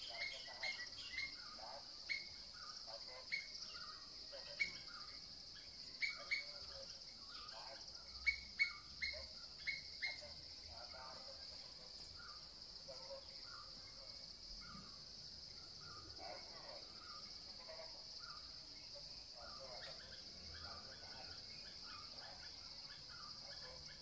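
Forest birds calling over a steady high insect drone. Sharp, repeated bird notes come in a quick run through about the first ten seconds, then only softer scattered chirps.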